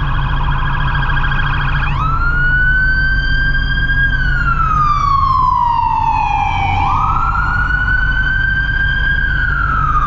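Emergency vehicle siren: a rapid yelp for about the first two seconds, then a slow wail that rises and falls, climbing back up abruptly partway through. Under it is a steady low engine rumble.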